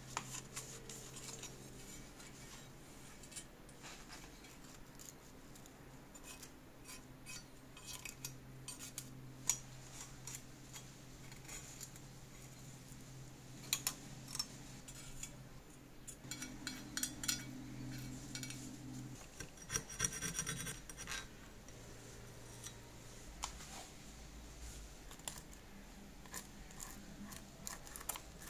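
Small pressed-steel parts of a 1960s Tonka Willys Jeep toy being scraped and sanded by hand with a wooden stick and sandpaper: scratchy rubbing with light metallic clicks as the parts are handled, and a brisk run of rapid scrubbing strokes about two-thirds of the way in. A low steady hum underneath stops at about the same point.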